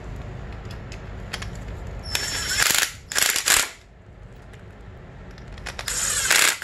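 Cordless impact driver with a socket bit rattling in three short bursts, about two, three and six seconds in, turning a pad pin on a dirt bike's front brake caliper.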